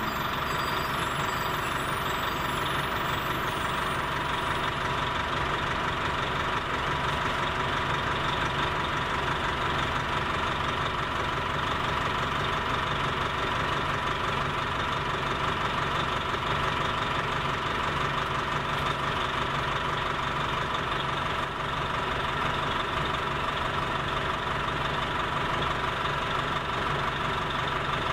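Orion V transit bus engine idling steadily, with a steady high-pitched whine over the engine's rumble.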